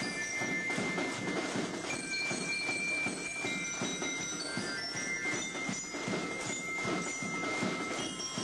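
Marching band playing, with ringing glockenspiel-like bell notes over a steady beat of drums.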